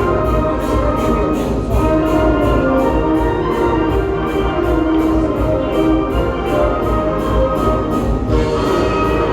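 Music with a steady beat and a heavy bass line, brass-like and orchestral in sound.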